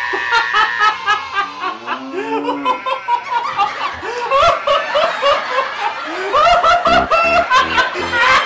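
Laughter, in short repeated bursts, over loud background music.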